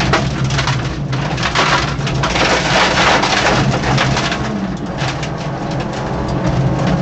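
Peugeot 205 1.9 rally car's four-cylinder engine running at speed, heard from inside the cabin. Over it comes a dense clatter of loose stones and gravel striking the underbody and wheel arches, heaviest about halfway through.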